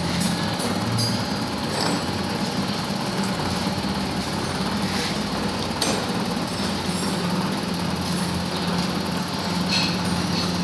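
Taiwanese-made Standar milling machine running while resurfacing an engine cylinder head: a steady low hum under a dense grinding noise from the cutter, with a few sharp ticks.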